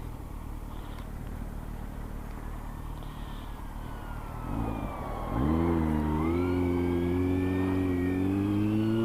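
Kawasaki Z900 inline-four motorcycle engine, quieter at first, then picking up revs about five seconds in and running steadily under way. A siren wails faintly over it, rising and falling.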